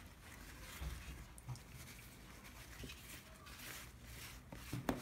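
Hand spreading olive oil over the top of raw dough in a metal baking pan: faint, soft, irregular rubbing and patting.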